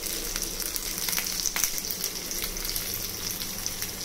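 Sliced onions, green chillies and curry leaves sizzling in hot oil in a stainless steel pan: a steady hiss with scattered small crackling pops.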